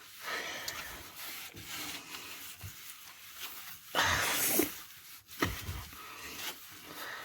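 Scrubbing and wiping strokes on the inside of a dirty refrigerator, a rough rubbing sound with one louder stroke about four seconds in and a couple of light knocks soon after.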